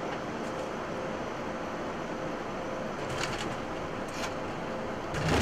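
Steady rushing cockpit noise of an Airbus A220 on its landing roll: airflow, engines and runway rumble, rising slightly near the end.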